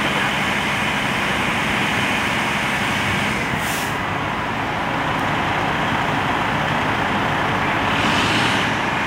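Fire apparatus diesel engines running steadily under a constant rushing noise. A short, sharp hiss comes about three and a half seconds in, and a softer one near the end.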